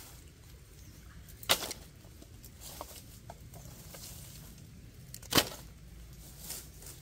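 Dry branches being gathered and piled for firewood: two sharp wooden knocks about four seconds apart, with lighter crackles of twigs and dry leaf litter between.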